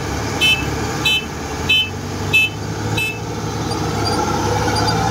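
Kubota DC-105X combine harvester's diesel engine running with its warning beeper sounding six short beeps, about two a second, that stop about three seconds in. The beeps come as the machine backs down toward the barge. After that the engine and the crawler tracks grow louder.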